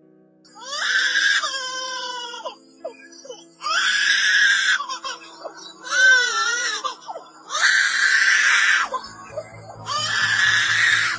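Lyrebird giving five long, harsh calls with sliding pitch, each a second or two long, over faint background music.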